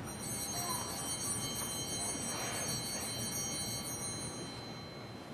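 Altar bell rung at the elevation of the chalice during the consecration: struck right at the start, a bright high ringing full of overtones that fades away over about four to five seconds.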